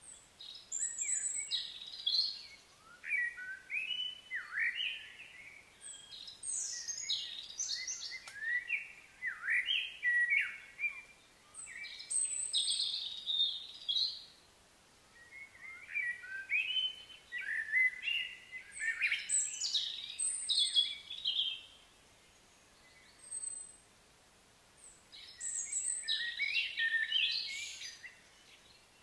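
Small songbirds singing: quick, varied chirps and whistled notes in bouts of a few seconds with short pauses between, and a longer pause a few seconds before the end.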